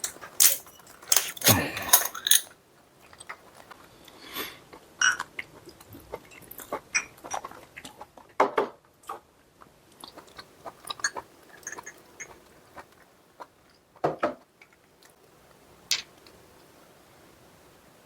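Close-miked chewing of food, with scattered short clicks and clinks of cutlery against dishes; the loudest burst of clatter comes in the first couple of seconds.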